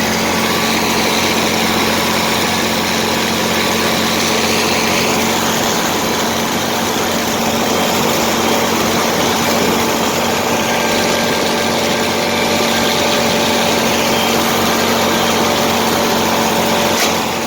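Massey Ferguson tractor engine running steadily while mowing pasture, a constant hum with the cutting machinery.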